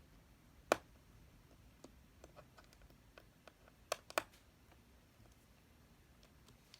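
Small screwdriver working tiny laptop screws back into a display: sharp metallic clicks and light ticks, a loud click about a second in and two close together around four seconds in.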